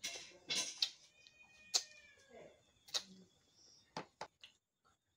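Close-up mouth sounds of eating rice and egg curry by hand: a burst of wet smacking and chewing at the start, then single sharp lip smacks and clicks spread through the rest. Faint high tones are held in the background.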